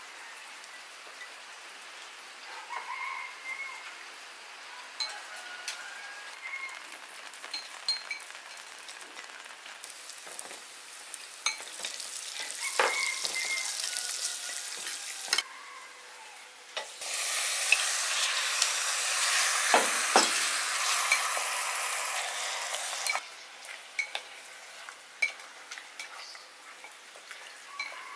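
Hot oil sizzling in a pot as sliced shallots and chili are fried and stirred with chopsticks, then a louder, steady sizzle for several seconds past the middle as the pig feet sear, before it dies back. Chopsticks click against the pot throughout.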